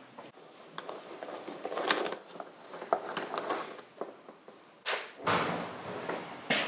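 Small metal brake master cylinder parts clicking and clattering as gloved hands handle them and set them down on a metal workbench, with irregular light scrapes and a louder clatter about five seconds in.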